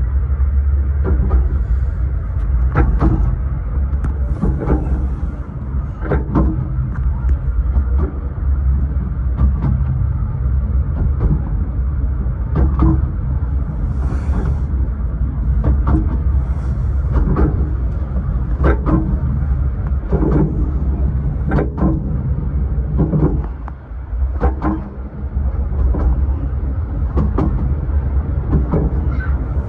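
A 15-inch gauge miniature railway carriage running along the track, heard from inside its rear compartment: a steady low rumble and rattle, with a sharp knock from the wheels over the rail joints about every one and a half seconds.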